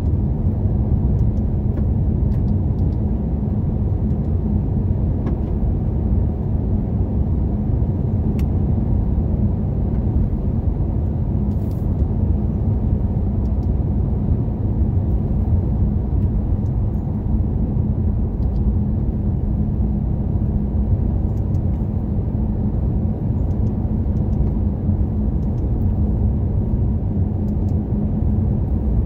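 Car driving at highway speed: steady low road and engine rumble with a constant drone, unchanging throughout.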